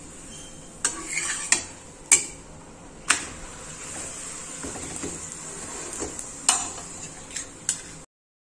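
Jaggery dashmi flatbread frying in ghee on a hot tava: a steady sizzle, with a spatula knocking and scraping against the griddle several times. The sound cuts off abruptly near the end.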